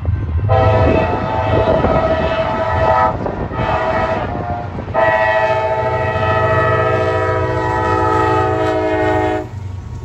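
CSX freight locomotive's air horn sounding the grade-crossing signal: a long blast, a short one, then a long final blast held about four and a half seconds that cuts off near the end. Underneath are the low rumble of the passing train and wind buffeting the microphone.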